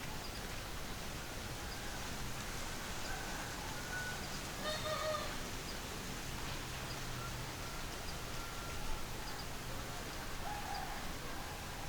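Faint outdoor rural background with a few scattered, distant bird calls, the clearest about five seconds in.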